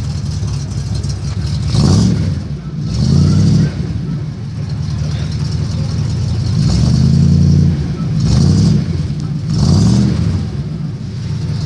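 Triumph Stag 3-litre V8 running at the twin tailpipes, idling steadily and revved about five times, the longest rev about seven seconds in.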